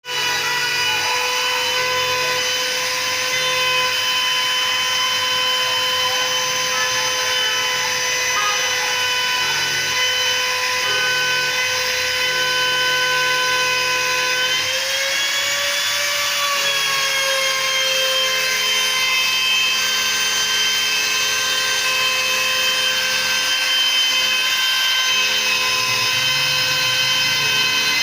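CNC router spindle running with a steady high whine, its pitch rising briefly about halfway through and settling back. Lower humming tones switch on and off underneath as the axis motors move the machine.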